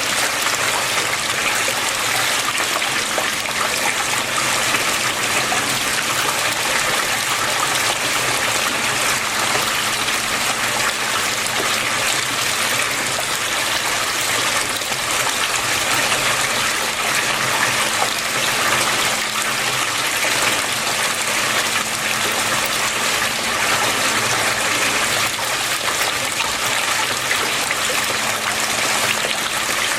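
Flowing water running steadily in an even, unbroken rush, with a faint low hum underneath.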